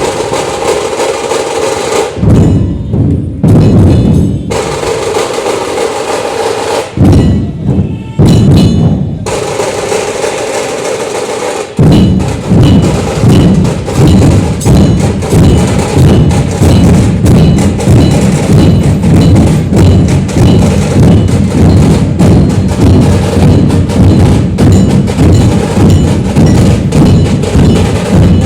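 Drums being played: loose and varied at first, with short breaks about two and seven seconds in, then settling about twelve seconds in into a steady repeated beat with a faint high ringing note on the strokes.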